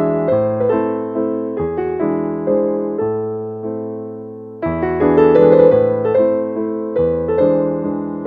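Background music: a solo piano playing soft chords and melody, the notes struck and fading, with a fuller, louder passage coming in about halfway through.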